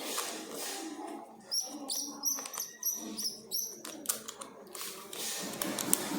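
Birds chirping in a quick run of short, high chirps, mixed with sharp clicks and light knocks.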